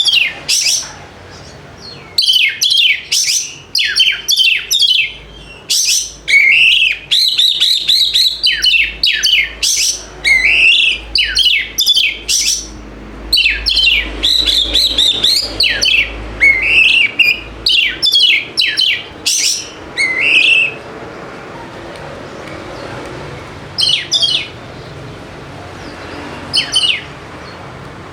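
Oriental magpie-robin (kacer) singing a long run of quick, varied phrases of whistled notes and pitch sweeps. About twenty seconds in it stops for a few seconds, then gives short bursts again near the end.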